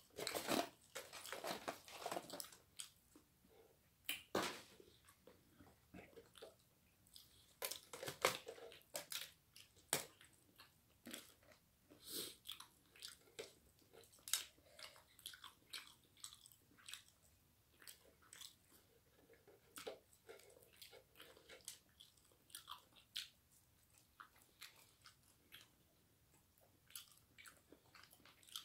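Chewing and crunching of crispy fried chicken and french fries, with irregular sharp crackles as the breaded skin is torn apart by hand; the crackles are densest and loudest in the first half.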